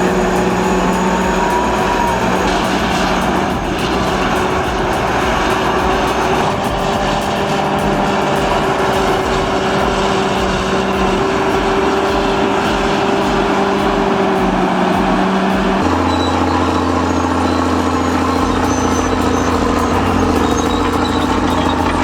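Heavy diesel engine of vintage earthmoving machinery running steadily. About 16 s in, the note changes to a lower, different hum.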